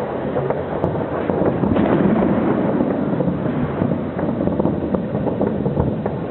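Fireworks display at full tilt: a dense, continuous rumble of overlapping bangs with many sharp cracks scattered through it.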